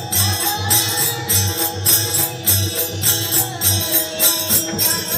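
Live devotional music amplified through a PA sound system: a drum keeps a steady beat of about two strokes a second under sustained tones, with jingling percussion on top.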